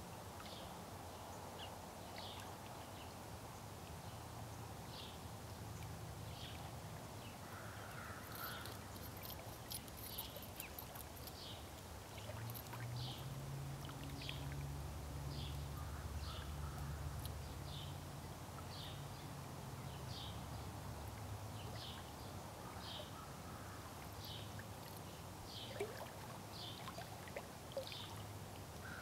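An animal's short high peep repeated about once a second, over an outdoor background in which a low rumble swells and fades in the middle.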